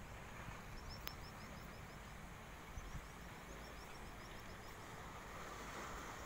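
Faint seashore ambience: a steady wash of wind and water noise with a low rumble, over which runs of rapid, evenly spaced high chirps come and go. One sharp click about a second in.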